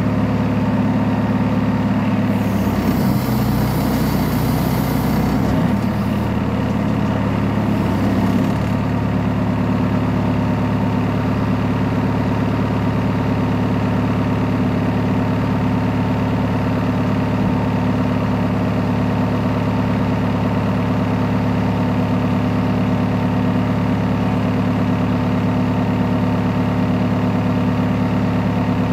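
JCB backhoe loader's diesel engine idling steadily. A few seconds in, its note shifts for several seconds with a hiss over it, then it settles back to an even idle.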